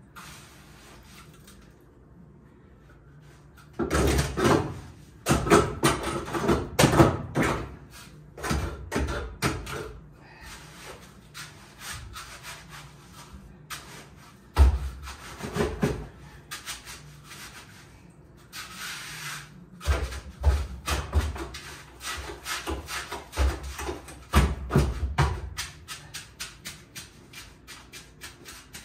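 Hand trowel scraping and working wet concrete into a floor patch, in irregular runs of rough strokes with short pauses, starting about four seconds in.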